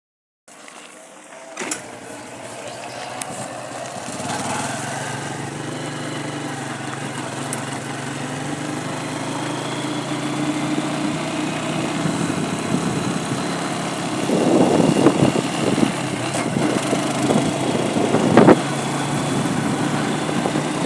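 A vehicle engine running with a steady hum that slowly rises in pitch and grows louder; from about two-thirds of the way through, a rough rushing noise joins it, with a sharp knock near the end.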